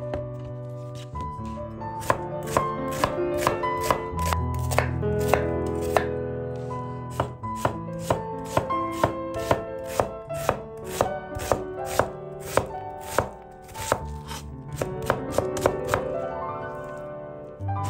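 Kitchen knife chopping an onion on a wooden cutting board: a long run of sharp knife strikes, a couple a second, coming closer together in the second half. Soft background music with sustained notes plays under it.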